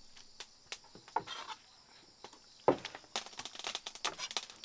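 Scattered light clicks, a sharp knock about two and a half seconds in, then dense crackling and rustling.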